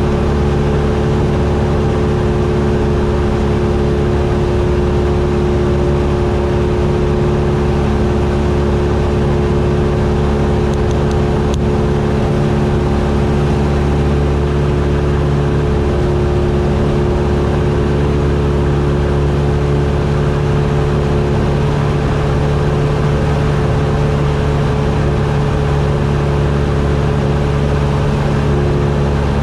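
Cessna 172's piston engine and propeller droning steadily in flight, at an unchanging power setting.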